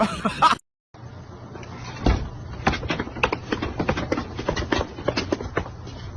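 A dense run of irregular short knocks and clicks over a low steady hum, beginning after a brief cut about a second in.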